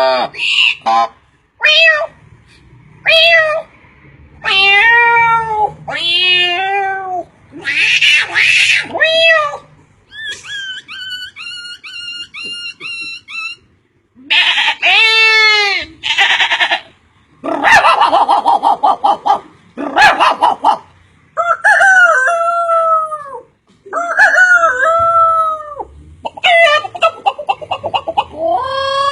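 A run of varied animal calls, one after another, each a second or two long with short gaps between them, including a quick run of repeated chirps about a third of the way through.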